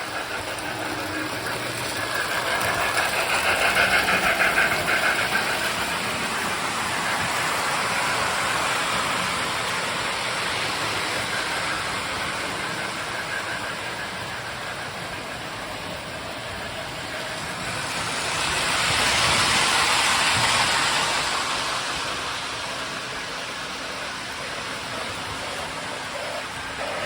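Several electric toy trains running on a layout: a steady hum of motors and wheels on the track. It swells louder twice, a few seconds in and again around two-thirds of the way through, as a train passes close by.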